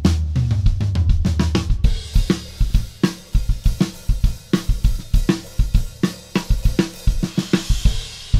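Dixon drum kit with Istanbul Agop cymbals played in a busy groove of kick, snare and tom strokes. A bright cymbal wash comes in about two seconds in and builds toward the end.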